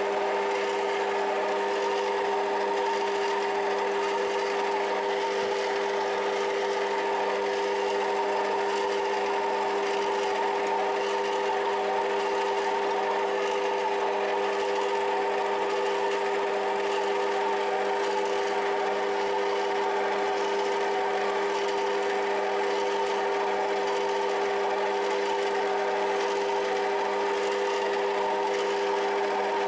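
Rotwerk EDM 350DR 7x14 mini lathe running at a steady speed, a constant geared whine of several held tones. The noise comes mainly from its plastic gears.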